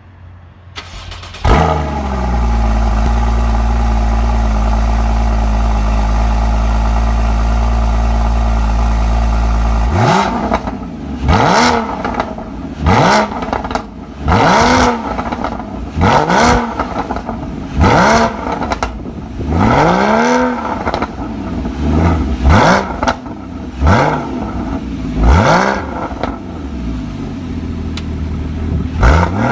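Porsche Boxster S flat-six through its factory sport exhaust, firing up with a flare about a second and a half in and settling into a steady idle. From about ten seconds in the throttle is blipped about a dozen times, each rev rising and falling back quickly.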